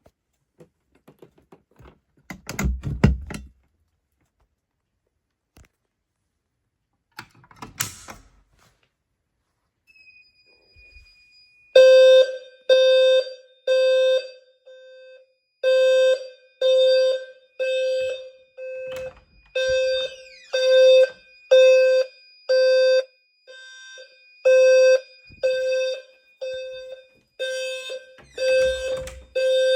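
Fire alarm horn sounding a low, buzzy tone in short pulses about once a second, starting about twelve seconds in. Before that there are only a few knocks and rustles.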